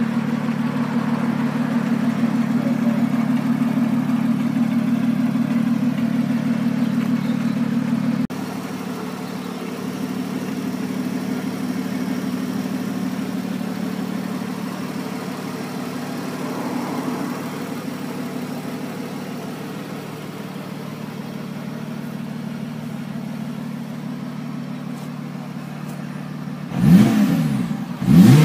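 Lotus Exige Sport 380's supercharged 3.5-litre V6 idling steadily, heard from inside the cabin. The level drops a step about a third of the way through. Near the end the throttle is blipped twice, the revs rising and falling sharply each time.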